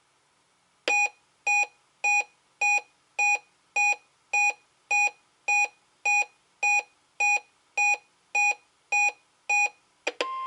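A NOAA weather radio receiver's alert beeper sounding a run of about sixteen short, evenly spaced electronic beeps, a little under two a second, as it reacts to the weekly test alert. Near the end there is a click and the radio's audio opens on the steady 1050 Hz warning alarm tone.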